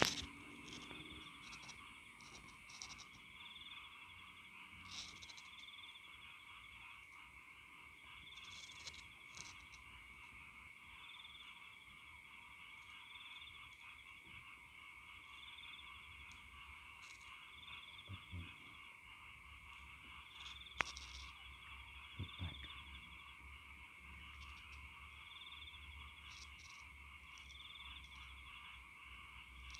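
Faint steady chorus of calling frogs and insects, with a short higher call repeating about every second and a half. A few soft knocks about two-thirds of the way through.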